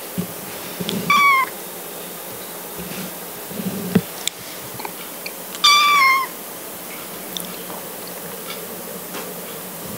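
Kitten meowing twice: two short high-pitched calls about four seconds apart, the second one longer, each dropping slightly in pitch at the end. A short knock comes about four seconds in.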